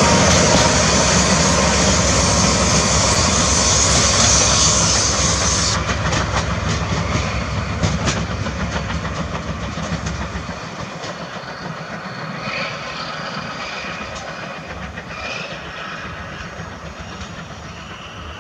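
A DE10 diesel locomotive and its coaches run past and pull away. A loud rushing noise from the passing train stops abruptly about six seconds in, wheels click over rail joints a few times, and the engine and wheel noise then fade steadily into the distance.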